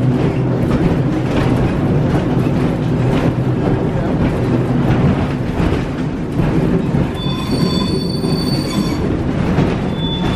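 1904 Brill streetcar running along the track, heard from inside the car: a steady rumble and rattle from the wheels and running gear. From about seven to nine seconds in, the wheels give a high, multi-toned squeal.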